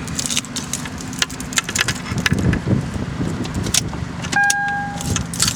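Keys jangling and small clicks and rustles of handling inside a car, then about four seconds in a car's warning chime starts, a steady beep that repeats roughly once a second.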